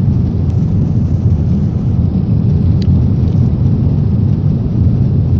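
Cabin noise of a Boeing 777-300ER in cruise: a steady low rush of engine and airflow noise, even and unchanging.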